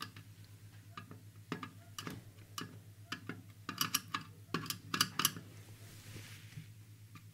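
Irregular light clicks of a screwdriver tip touching the metal chassis and pickup input terminals of a 1950s TeKaDe W367K tube radio, a cluster of quicker clicks in the middle, over a steady low mains hum. The set's speaker gives no hum or buzz back, which the restorer takes for a sign that the power amplifier is not working.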